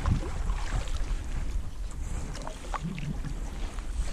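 Canoe paddling: a wooden paddle working the water, with wind rumbling on the microphone and a few light knocks a little past the middle.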